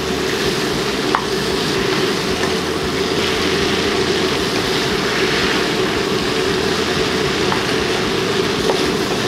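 Lamb, onion and carrot stir-frying in oil in a frying pan, sizzling steadily as they are stirred with a wooden spatula, with a few faint ticks of the spatula against the pan.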